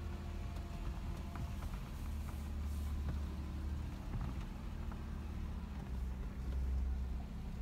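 Off-road vehicle's engine running low and steady while it crawls up a steep, rocky trail, heard from inside the cab, with a few faint clicks and creaks.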